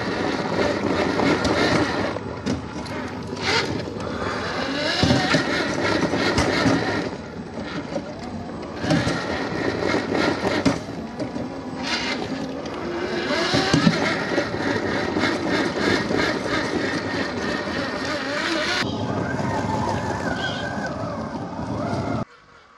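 Electric motors and gearboxes of scale RC rock crawlers whining, the pitch rising and falling with the throttle as they crawl over rock, with occasional sharp knocks. The sound cuts off suddenly near the end.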